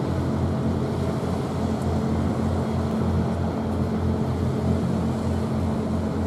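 Low, steady drone of ship engines from the frigate and its escorting tug, beating about three times a second, over a hiss of wind and water.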